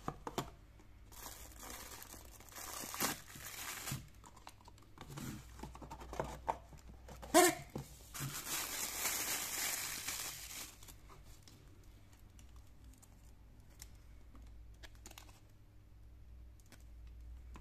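Thin plastic wrapping bag crinkling and rustling as a wristwatch is unwrapped by hand, in two long spells, with a few sharp knocks of cardboard box handling, the loudest about seven seconds in. After about eleven seconds, only faint handling clicks.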